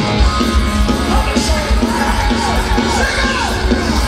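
Heavy metal band playing live through a festival PA, with drums, bass and guitars under a singer's lead vocal, heard from the crowd.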